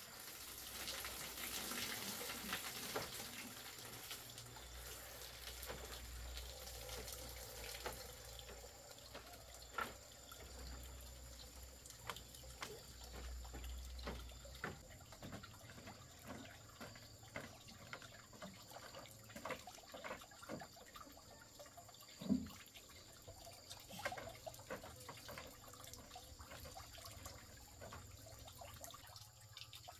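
Water trickling and splashing, with many small scattered clicks and knocks and one sharper knock about 22 seconds in.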